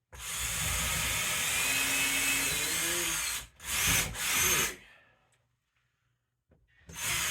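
Power drill with a 5/32-inch bit boring pilot holes into a wall stud. It runs steadily for about three and a half seconds, gives two short bursts, stops for a moment, then starts again near the end.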